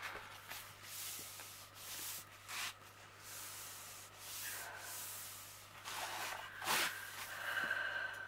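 Hands rubbing and smoothing the cover paper of a diamond painting canvas, a series of paper swishes and rustles with a sharper crinkle late on, as the paper is pressed flat over the adhesive.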